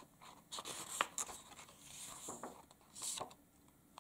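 Pages of a paperback picture book being turned by hand: paper rustling and flicking in several short bursts, loudest about a second in and again near the three-second mark.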